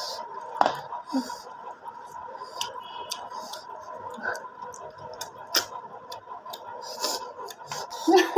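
Close-up mouth sounds of people eating pork: chewing and smacking, with scattered sharp clicks, over a faint steady high tone.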